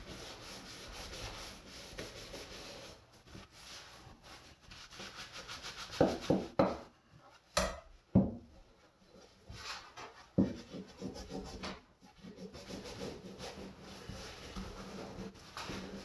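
Green abrasive scouring pad scrubbing the steel blade and spine of a vintage Wusthof kitchen knife laid on a wooden board, a scratchy rubbing in back-and-forth strokes that clean off grime before sharpening. A few strokes are louder, and there is one sharp knock about seven and a half seconds in.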